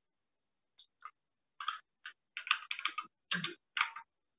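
Computer keyboard being typed on: an irregular run of quick keystrokes starting about a second in, some in close clusters.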